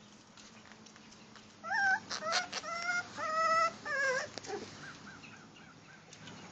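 Cheagle (Chihuahua–beagle cross) puppy crying: about five high-pitched cries with a slight downward bend in quick succession, then a run of fainter short squeaks.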